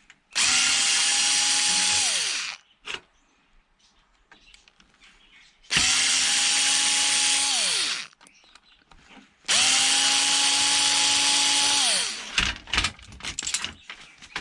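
Electric drill run three times, about two seconds each, a steady motor whine that winds down in pitch each time the trigger is released. Light rattles and clicks from handling the parts follow near the end.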